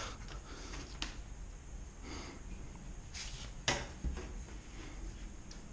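Quiet handling noises while a cutting line is marked on a 2x4: a couple of sharp clicks and a few short scratchy strokes.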